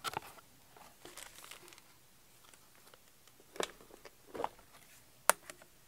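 Quiet handling of unboxed printer parts on a table: a small cardboard box set aside and a clear plastic parts case picked up and worked open, with faint rustling and a few sharp plastic clicks and taps, the loudest about five seconds in.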